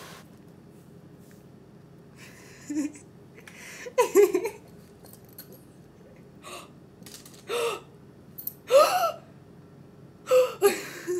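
A person's short gasps and breathy exclamations, several brief bursts a second or two apart, the loudest about four and nine seconds in.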